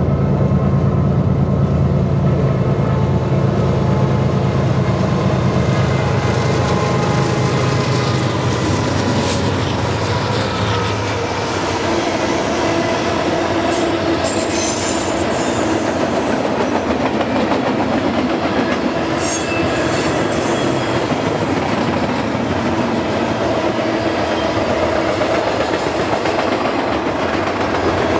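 Two diesel locomotives, led by a GE ES44DC with its V12 engine, running hard past close by for the first ten seconds or so. Then the steady rolling of loaded double-stack well cars: wheels clicking over the rail joints, with a few short high squeals from the wheels.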